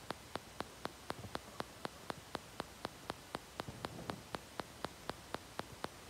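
Steady, even ticking, about four sharp ticks a second, over a faint hiss.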